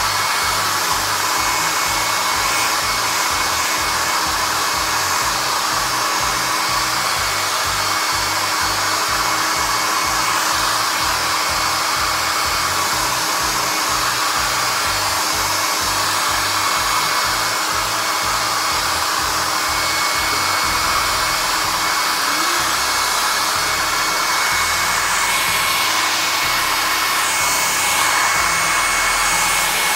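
Handheld hair dryer blowing steadily: a loud, even rush of air with a faint steady whine from its motor.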